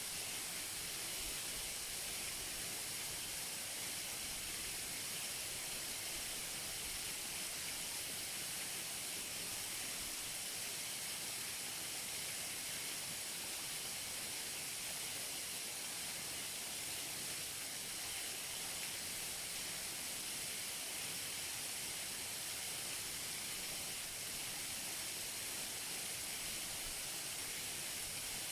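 Waterfall close up: steady rushing water, a dense hiss with most of its weight in the high frequencies and no breaks or changes.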